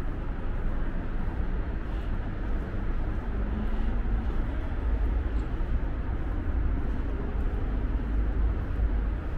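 Outdoor city street ambience: a steady deep rumble under an even background noise, with no distinct event standing out.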